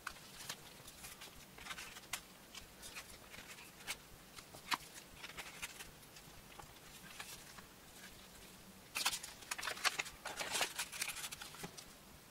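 Plastic cards sliding into and out of the card slots of a leather wallet, with scattered light clicks and scrapes as gloved fingers handle it. A busier flurry of scraping and rustling comes about nine seconds in and lasts a couple of seconds.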